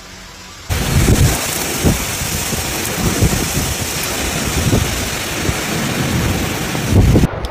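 Heavy rain and strong wind in a severe thunderstorm, a dense roar that starts abruptly about a second in. Low gusts surge every second or two, and the sound cuts off suddenly just before the end.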